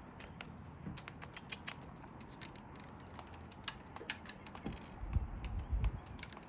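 Parrots' beaks cracking and husking seed: a rapid, irregular run of sharp clicks, with a few dull low thumps about five seconds in.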